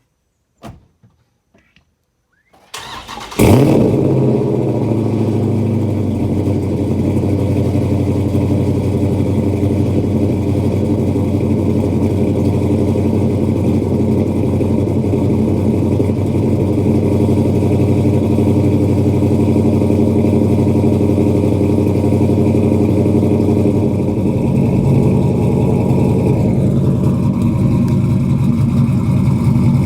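Swapped 6.4-litre (392) HEMI V8 with a cam, long-tube headers and 3-inch exhaust in a Dodge R/T, heard from inside the cabin: after a few faint clicks the starter cranks about three seconds in, the engine catches with a brief rev flare and settles into a steady idle. The idle note shifts about 24 seconds in.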